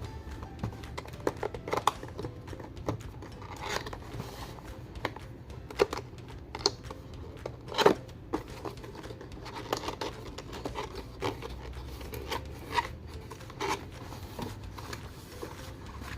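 A cardboard keyboard box being opened by hand: irregular scraping, rubbing and tearing of cardboard and packaging, with sharper clicks and knocks. The loudest knock comes about eight seconds in.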